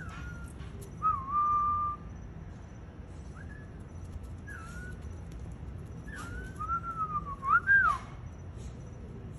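Mockingbird singing clear whistled phrases. A held whistle comes about a second in, then short rising notes, then a louder warbling phrase with quick up-and-down glides near the end.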